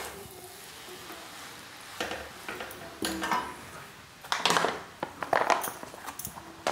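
Metal kitchen utensils clinking and clattering a few times: a steel spatula left in an aluminium wok and steel dishes handled on the counter. Before the first clink, about two seconds of faint steady hiss.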